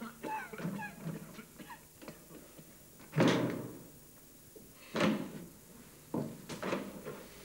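A heavy wooden door shut with a thud about three seconds in, followed by two shorter knocks a second or so apart.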